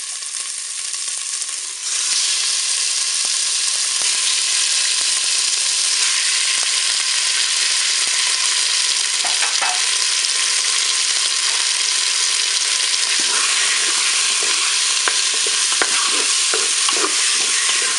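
Raw chicken pieces sizzling in hot olive oil in a Cookeo multicooker's bowl set to browning. The sizzle grows louder about two seconds in and then holds steady. In the last few seconds a spatula scrapes and stirs the pieces, adding light clicks.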